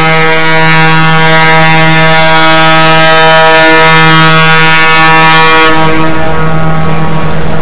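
Ship's horn sounding one long, steady, loud blast. Near the end its higher tones drop away, leaving a lower drone with rumble underneath.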